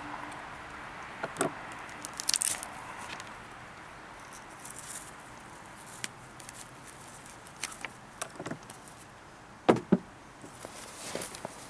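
Knife and hands working on a pheasant carcass on a wooden table: scattered scrapes and small clicks, with two sharp knocks close together about ten seconds in.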